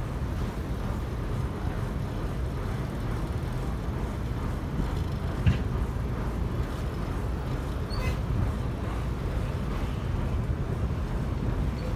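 Steady low rumble of a river car ferry's engine running as it gets under way, with one short knock about five and a half seconds in.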